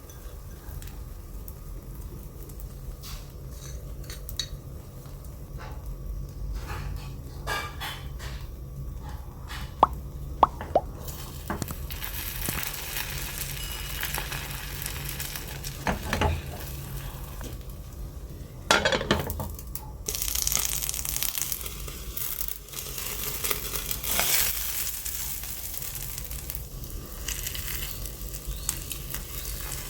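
A few sharp clinks of a utensil on a pan, then sizzling from about a third of the way in as preserved radish and egg fry in oil, with stirring in the pan.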